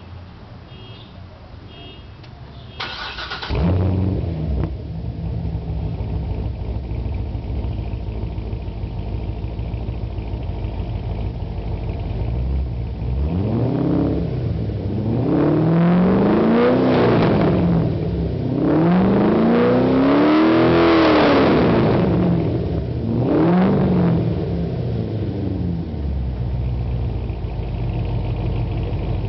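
C6 Corvette Z06's 7.0-litre LS7 V8, with LG long-tube headers and a Borla S-type cat-back exhaust, starting with a loud bark about three seconds in after a few electronic beeps, then idling. Around the middle it is revved four times, a short blip, two longer and higher revs, and another short blip, each rising and falling back to idle.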